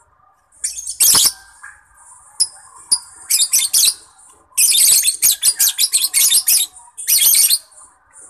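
Lovebird singing: shrill, piercing chirps in bursts, with a fast run of chirps in the middle, over softer continuous chatter.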